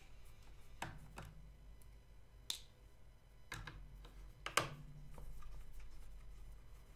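Small screwdriver working screws out of a drone's plastic body: a handful of faint, scattered clicks and taps, the sharpest about two and a half and four and a half seconds in.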